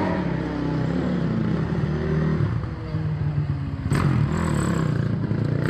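Dirt-bike engines revving as motorcycles ride past, the pitch rising and falling with the throttle. A sharp crack about four seconds in.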